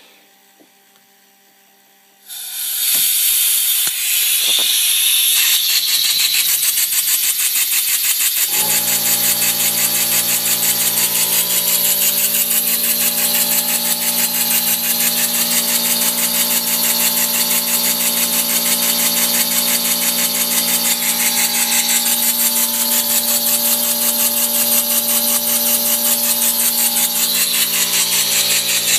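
Homemade model single-acting stationary engine starting up and running on 130 PSI compressed air: about two seconds in the air comes on and the engine settles into a loud, fast, steady hissing chuff of exhaust. From about eight seconds a steady motor hum joins underneath.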